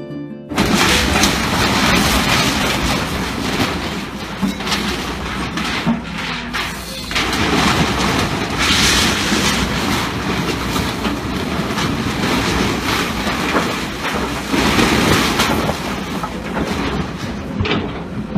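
Demolition noise: a heavy machine running, with repeated crashes and knocks of timber and debris as buildings are torn down.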